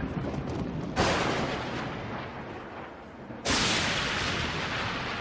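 Cinematic boom sound effects of an animated logo intro: two sudden noisy hits, about a second in and about three and a half seconds in, each fading away over a couple of seconds.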